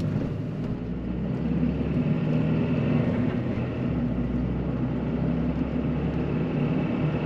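Car running: a steady low hum with a few held tones underneath.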